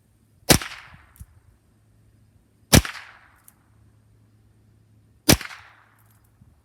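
Three aimed semi-automatic .22 LR shots from an H&K 416 D rifle, spaced about two and a half seconds apart. Each shot is a sharp crack followed by a short fading echo.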